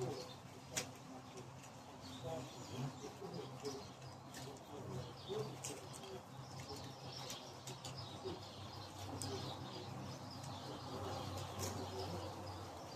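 Wild birds calling and chirping, with a dove cooing, over a faint steady low hum. Scattered faint sharp clicks come and go.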